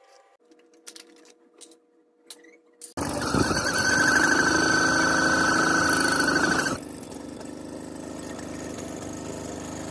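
Velo Solex 3800 moped's 49cc two-stroke single-cylinder engine: a few faint clicks, then about three seconds in the engine is running loudly. It drops sharply to a quieter steady run a little before the seven-second mark.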